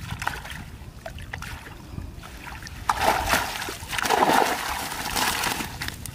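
Water splashing and streaming off a net trap as it is hauled up out of shallow water, with caught fish flapping in the mesh. Small drips and sloshes for the first few seconds, then loud splashing from about three seconds in as the net comes clear of the water.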